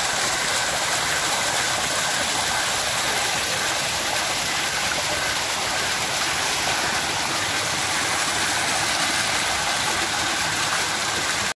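Running water rushing and splashing over rocks in a steady, even rush.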